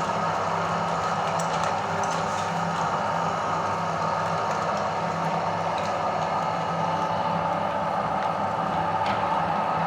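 Electric meat grinder running steadily with a constant motor hum, a few faint crackling clicks heard now and then while it grinds eggs.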